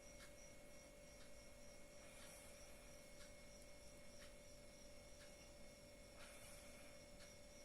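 Near silence: room tone with a faint steady hum and a faint tick about once a second.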